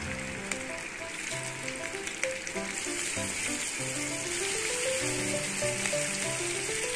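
Marinated fish steaks sizzling steadily as they shallow-fry in hot oil in a pan, with soft background piano music playing under the sizzle.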